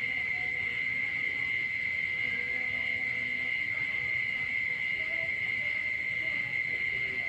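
Frogs calling after rain in a steady high-pitched chorus, with faint lower calls scattered through it.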